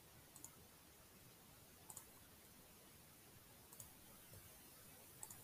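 About four faint computer clicks, a second or two apart, over near silence.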